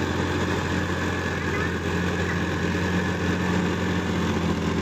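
Sonalika 50 hp diesel tractor engine running steadily under load as it pulls a rotary tiller through wet paddy mud, with a constant low hum.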